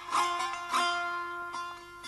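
Solo bağlama (long-necked Turkish saz) plucked with a plectrum, playing a few slow, separately struck notes that ring and fade over sustained open-string tones.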